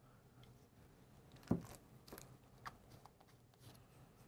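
Faint, sparse clicks and taps of a plastic tie-dye bottle being handled, with one sharper click about a second and a half in.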